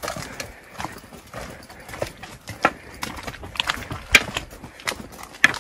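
Footsteps and the taps of a walking stick on a rocky stone path: a dozen or so irregular clicks and knocks, the loudest about four seconds in.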